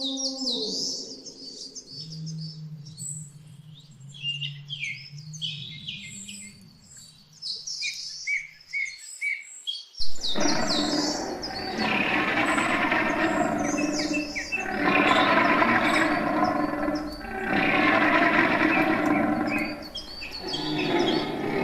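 Birds chirping in quick, high calls over a low steady hum. About ten seconds in, a much louder, rough sound starts suddenly and rises and falls in about four long swells of two to three seconds each.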